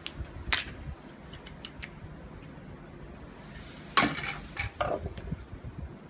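Metal clinks and knocks from tapping apart a small electric motor to free its shaft and steel core: two sharp taps at the start, a few light ticks, then the loudest knock about four seconds in followed by several lighter clinks.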